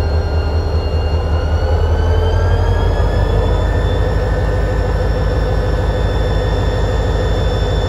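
Diesel-electric locomotive CLP9 running at idle: a deep steady rumble under a high whine. The whine rises a little in pitch about two to three seconds in, then holds steady.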